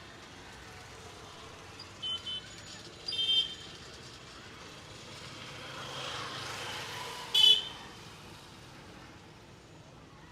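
Street traffic with vehicle horns honking: two short toots about two seconds in, another a second later, and the loudest near the end. Between them the traffic noise swells as a vehicle goes by.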